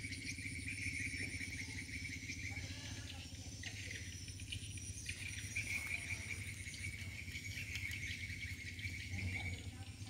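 Insects trilling in fast, even pulses. The trill stops about two and a half seconds in and starts again after a few seconds, over a steady low hum.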